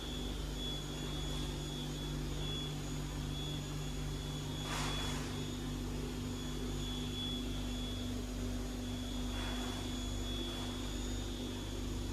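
Star SB-20R Swiss-type CNC lathe running: a steady machine hum with a constant high whine, and two brief hisses about five and nine seconds in.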